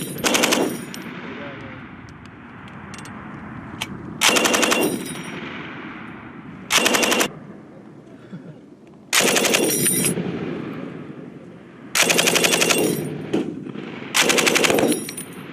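Belt-fed machine gun firing about five short bursts of rapid automatic fire, each under a second long, with the shots echoing away between bursts.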